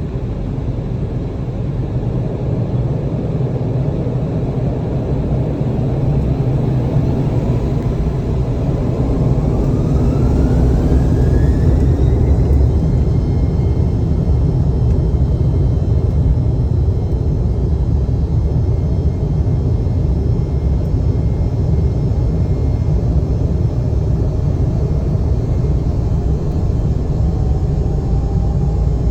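Embraer 190's GE CF34 turbofan engines during the takeoff run: a steady low rumble, with an engine whine that rises in pitch about ten seconds in as the rumble grows louder, then holds steady; a fainter rising tone comes in near the end.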